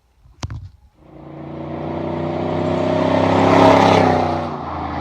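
A short click, then a pickup truck with a side-dump exhaust drives past: the engine and exhaust note grows steadily louder to a peak about four seconds in, then drops in pitch and fades as it goes by.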